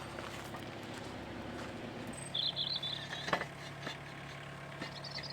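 Low steady hum of an idling engine, with a short high bird chirp about two and a half seconds in and a few faint knocks.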